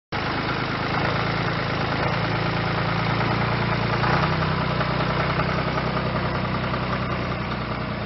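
Tractor engine idling steadily, its note shifting slightly about four seconds in.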